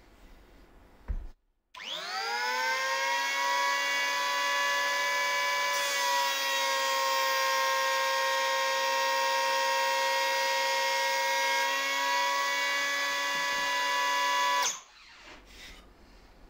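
Electric hand planer switched on with a click, its motor whining up to full speed within about a second, then running steadily. Its tone shifts slightly through the middle stretch as a thin strip of wood is fed under the cutter head, and it cuts off suddenly near the end.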